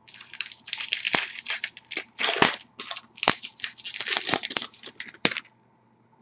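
Crinkling and tearing of a trading-card pack wrapper as it is torn open and handled, with sharp clicks, stopping about five seconds in.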